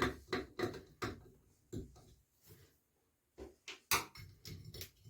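Irregular light clicks and knocks of a Phillips screwdriver working on a faucet handle's screw, about a dozen in a few seconds, the loudest near the four-second mark.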